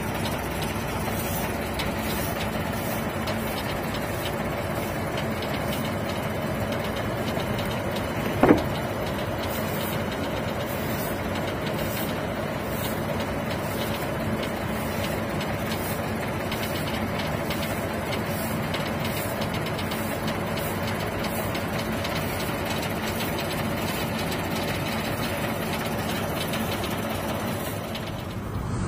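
Heavy diesel machinery engines running steadily at idle, with one sharp knock about eight seconds in.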